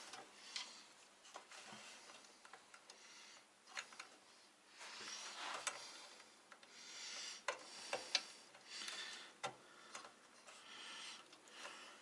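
Faint, irregular light clicks and soft rustling of small plastic front-panel header plugs and their thin wires being handled and pushed onto a PC motherboard's pins.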